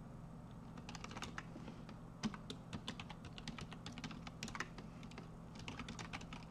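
Typing on a computer keyboard: an irregular run of key clicks as a login name, password and short command are keyed in, with one louder keystroke about two seconds in, over a faint steady low hum.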